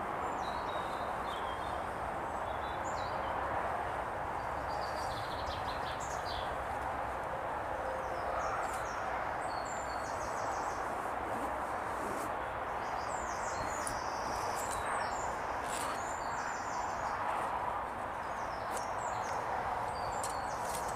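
Small woodland birds chirping and trilling again and again, high-pitched, over a steady background hiss.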